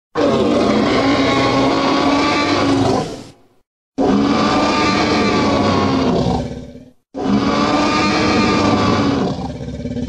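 Three long monster roars in the style of the Jurassic Park T. rex, each about three seconds, separated by brief silences; the third trails off just after the end.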